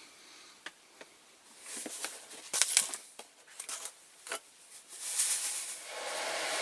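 Caustic soda granules rattling in a nearly empty container as it is shaken and tipped, with a few sharp clicks and knocks. Near the end a steady hiss sets in as the granules pour out.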